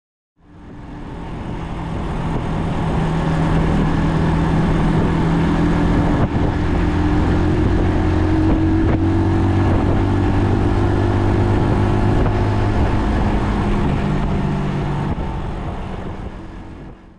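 Brixton Cromwell 125's single-cylinder four-stroke engine running at a steady cruising pace, heard from on board the motorcycle. It fades in at the start and fades out near the end.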